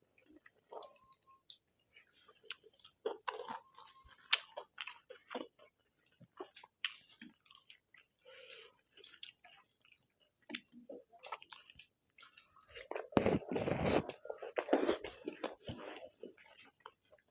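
People chewing and eating egg curry with rice, with scattered wet smacks and small clicks. About thirteen seconds in there is a louder, denser noisy stretch lasting about two seconds.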